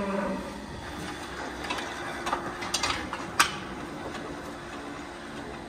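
Scattered metallic clicks and clanks from a cattle hoof-trimming chute and its leg-lifting fittings as the cow is worked on. A sharp click about three and a half seconds in is the loudest. A steady low hum runs underneath.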